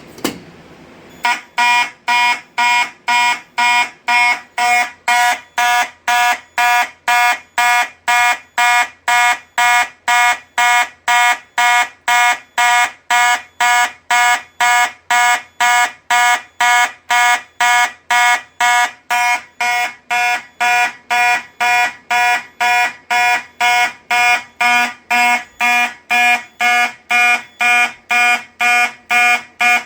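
A click as the conventional pull station is pulled. About a second later, a Simplex 2901-9838 fire alarm horn sounds in march-time code, about two short blasts a second. It cuts off abruptly near the end as the panel's audible silence shuts the horn off.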